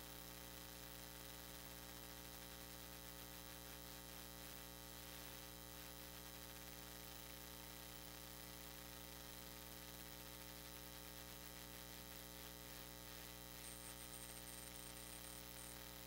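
Near silence with a steady electrical mains hum and its overtones.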